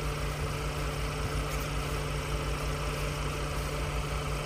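A vehicle engine idling steadily, a constant low hum with an even rumble underneath.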